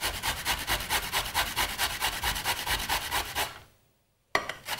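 Celery root being grated on the fine side of a stainless-steel box grater: quick, even rasping strokes, about six a second. The strokes break off briefly about three and a half seconds in, then resume.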